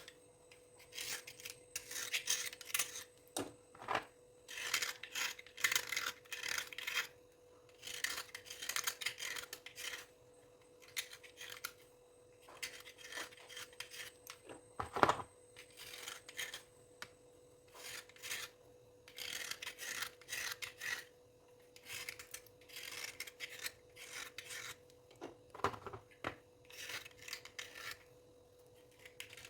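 Dry scraping and rubbing strokes, repeated in clusters with short pauses between them. A sharp click about halfway through is the loudest sound. A faint steady hum runs underneath.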